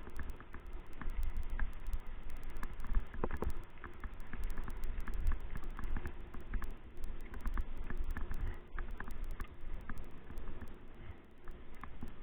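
Many irregular small clicks and knocks over a low steady rumble.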